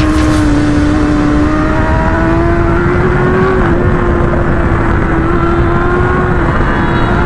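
Motorcycle engine running at a steady speed on the move, its pitch creeping slowly upward with a brief dip midway, over a loud low rush of wind noise.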